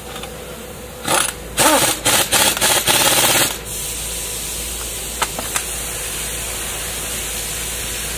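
Impact wrench hammering in about six short bursts, tightening a nut on the strut assembly, then a steady hiss with a couple of light clicks.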